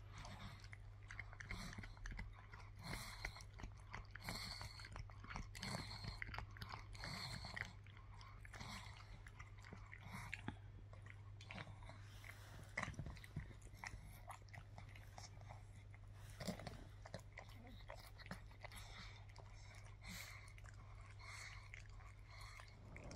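A pug gnawing and chewing on a hard chew stick: quiet, irregular crunching and clicking of teeth on the chew.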